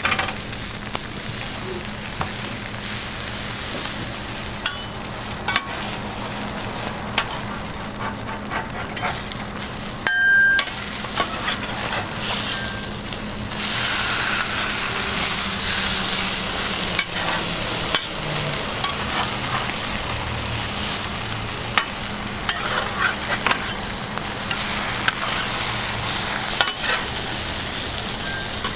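Egg-and-cheese patties for pizza toast sizzling on a hot flat-top griddle, with sharp clicks and scrapes of a metal spatula on the griddle plate as they are turned. The sizzle swells for a few seconds about halfway through.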